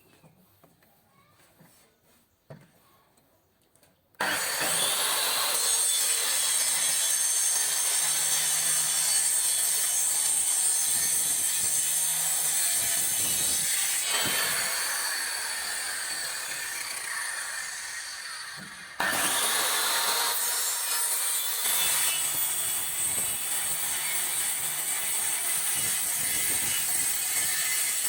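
Handheld cutting machine fitted with a circular saw blade, switched on about four seconds in and cutting wood with a steady high-pitched whine. The sound fades away and then starts again suddenly for a second cut.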